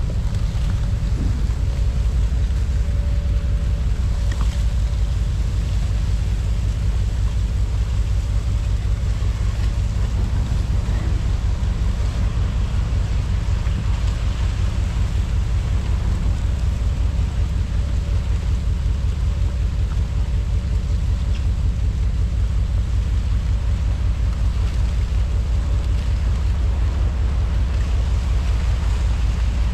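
A car ferry under way on an ice-choked river: a steady low rumble from its engines, with wind buffeting the microphone and a faint steady hum above it.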